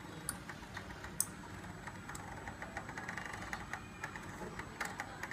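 CNC laser cutter's stepper motors and carriage clicking and ticking in quick irregular steps as the laser head moves during cutting, over a faint steady hum, with a few sharper clicks now and then.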